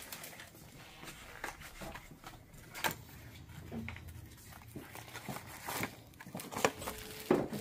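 Scattered rustles, crinkles and light clicks of packaging being handled: a small paperboard box is opened at its flap and a plastic-wrapped item is drawn out.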